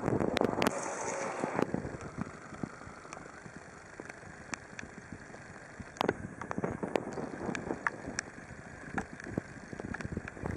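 Clark 1.6-tonne three-wheel electric forklift moving slowly over wet paving: tyres hissing through the water, with scattered clicks and knocks and no engine note.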